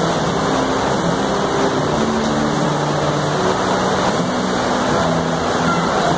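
Heavy flow of water gushing steadily out of a water-park raft slide's exit into the splash pool, a loud continuous rush.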